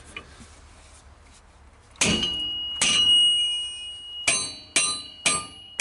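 Hammer striking the end of a hub puller screwed onto a tight, keyed rear axle hub, trying to shock the brake drum and hub loose: six sharp metal blows, each ringing on, the first two a second apart, then four quicker ones about half a second apart.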